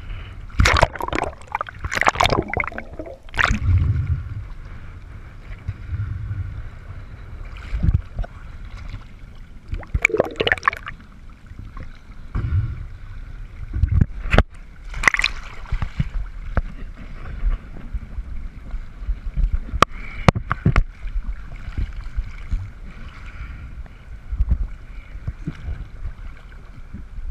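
Choppy sea water sloshing and splashing against a waterproof camera housing at the surface, with irregular splashes and gurgles as the camera dips into the waves, over a low rumble of wind and water.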